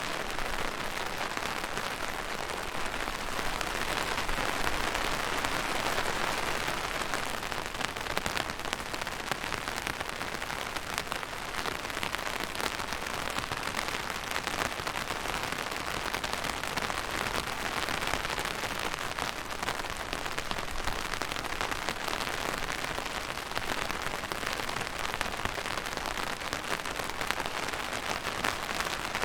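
Steady rain falling on a surface, a dense even patter of many drops.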